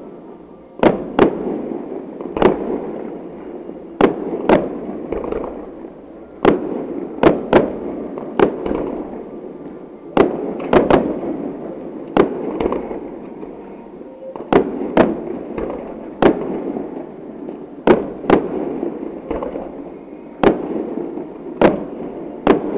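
Fireworks display: aerial shells going off in a steady run of sharp bangs, about one or two a second, each trailing off in a low rumble.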